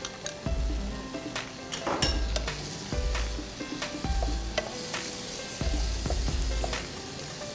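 Chopped onion, capsicum, tomato and mushrooms sizzling in a nonstick frying pan while a wooden spatula stirs them, scraping and tapping against the pan in quick, irregular clicks.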